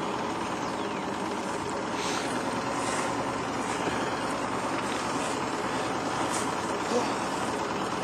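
Small boat's outboard motor running steadily at low speed.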